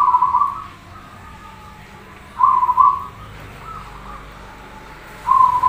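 Zebra dove (perkutut) cooing: three short phrases of quick, whistle-like coos, each about half a second long and about two and a half seconds apart.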